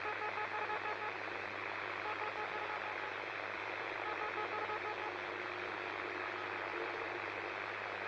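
Steady radio static hiss with a low hum under it, and faint beeping tones that come and go every second or so.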